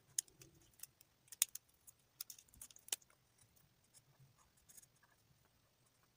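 Marker pen tip tapping and scratching on paper while colouring: a quick run of sharp little clicks in the first three seconds, then a few softer ones about five seconds in.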